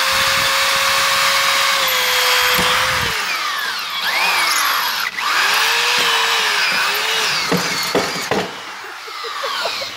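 Handheld power drill driving a carbide tile-and-glass bit into 1/8-inch steel tubing, with a steady motor whine and grinding from the bit cutting metal. About three seconds in the motor stops. Then come several short bursts where it speeds up and slows again, and a few knocks near the end as the bit binds in the steel.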